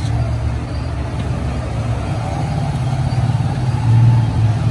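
A steady low mechanical hum, like a running motor or idling engine, growing somewhat louder about four seconds in.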